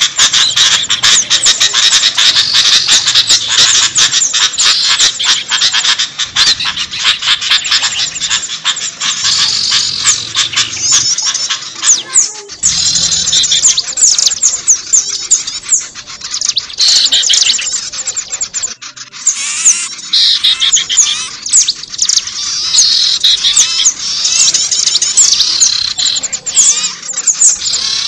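Many small songbirds chirping and calling over one another in a dense, continuous chorus of rapid high twitters and short sweeping notes. It is a bird-lure recording of mixed species calling, used to draw small birds in.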